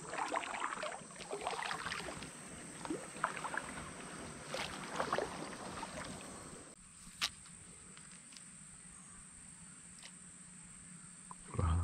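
Plastic sit-on-top kayak, a Barracuda Evolution, being pushed through flooded reeds and grass: water splashing and stems scraping along the hull for about the first seven seconds. Then it goes quieter as the kayak glides onto open water, with one sharp click and a short dull thump near the end.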